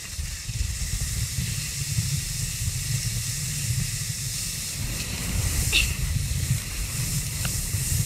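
Skis hissing through powder snow, with wind rumbling steadily on the camera's microphone. A brief high squeak comes about six seconds in.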